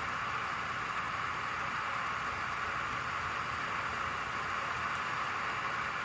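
Steady rain falling, an even hiss with no distinct drops or rumbles.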